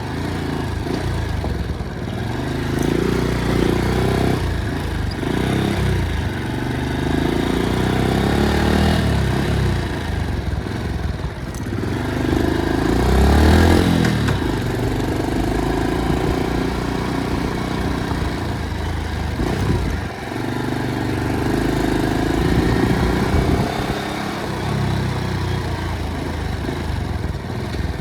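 Motorcycle engine running, its revs rising and falling again and again.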